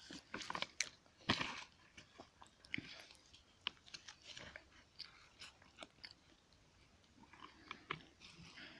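Faint, scattered crunching and chewing of snack food close to the microphone, in short irregular clicks.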